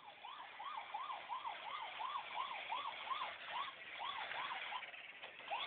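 Toy police car's electronic siren yelping: a quick rising-and-falling tone repeating about two and a half times a second.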